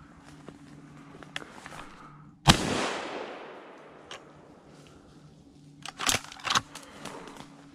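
A single gunshot about two and a half seconds in, echoing away over about a second and a half. A few sharp crackles follow near the end.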